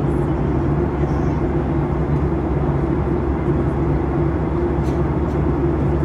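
Jet airliner cabin noise in flight: a steady drone of engines and rushing air with a low hum running through it.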